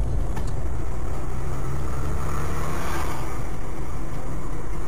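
Steady road and engine noise of a moving car, a low rumble under a hiss that swells briefly about three seconds in.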